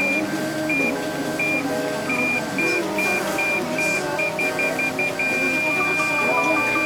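Car parking sensor warning beeps, coming faster and faster and then merging into one continuous tone about five seconds in: the sign that the car is very close to an obstacle. Background music plays underneath.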